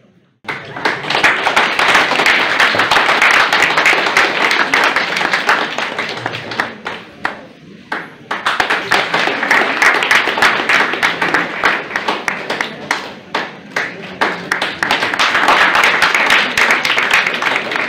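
Audience applauding: a round of clapping that dies away about seven seconds in, then picks up again about a second later.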